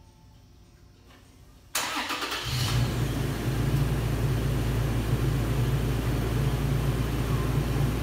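2017 Toyota Tacoma engine being remote-started from the factory key fob: a brief crank a little under two seconds in, catching almost at once and settling into a steady idle.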